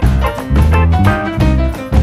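Background music with a heavy bass line, its notes changing about twice a second under higher pitched notes.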